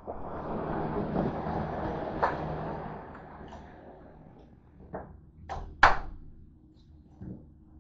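A door being opened and let shut. There are a few seconds of rustling as it swings open, then a run of sharp clicks and a knock as it latches, the loudest about six seconds in.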